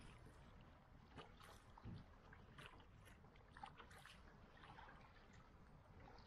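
Faint water lapping and trickling against a kayak's hull as it glides, with small irregular splashes.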